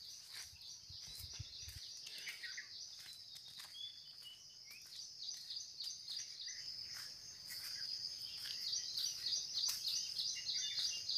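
Insects trilling in a continuous high-pitched chorus, growing louder over the last few seconds, with a few short bird chirps.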